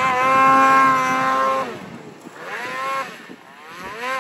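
A mountain snowmobile's two-stroke engine revving hard and holding a high, steady pitch for over a second, then dropping off. It revs up and back down again about halfway through and blips once more near the end.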